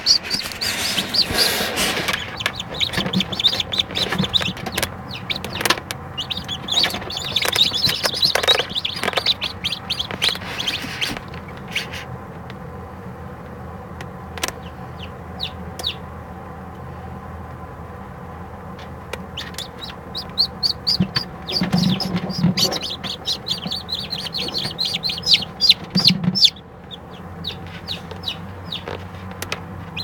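Newly hatched chicks peeping in an incubator: rapid high-pitched peeps in busy spells at the start and again in the second half, sparser in between, over a steady low hum.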